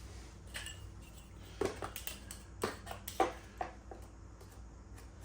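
A few light clicks and knocks from tools and the drive chain being handled on a dirt bike while the chain slack is measured, over a faint steady hum.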